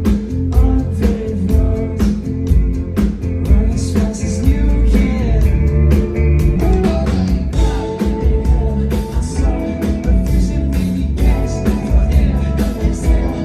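Rock music with a steady drum beat, bass and singing.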